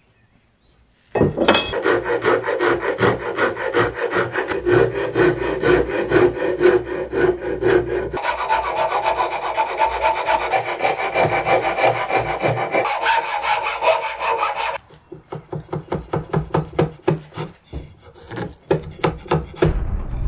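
A metal file or rasp scraping back and forth across the end grain of a wooden axe handle, shaping it. The quick strokes begin about a second in, then thin out to slower, separate strokes in the last few seconds.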